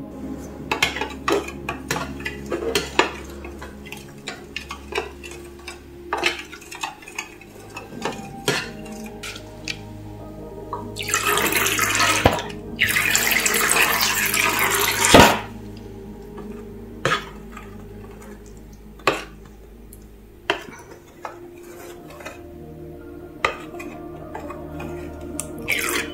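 A plastic squeeze bottle of clear glue clicking and dripping into a plastic bowl of water, then a long splashy pour of liquid slime activator from a plastic bottle in two pulls between about 11 and 15 seconds in, followed by a plastic spoon tapping and stirring in the plastic bowl. Faint background music underneath.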